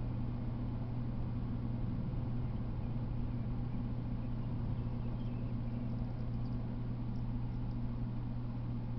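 Steady low hum under an even hiss, with a few faint, short high chirps in the middle.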